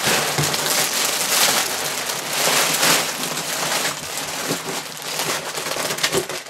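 Plastic bags of LEGO Technic pieces crinkling and rustling as they slide out of an upturned cardboard box, with a few light knocks of the box and bags against the table. The noise stops abruptly near the end.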